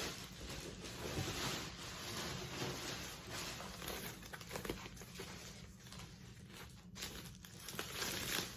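Packaging wrap rustling and crinkling as a well-wrapped leather handbag is unwrapped and handled, with small irregular crackles throughout.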